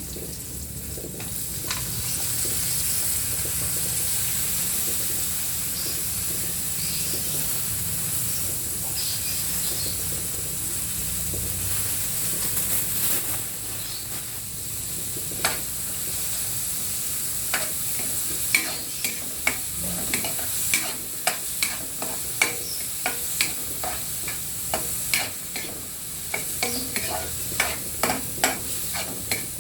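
Food sizzling in a frying pan, a steady hiss, stirred with a metal utensil that clacks against the pan in frequent sharp knocks from about halfway on.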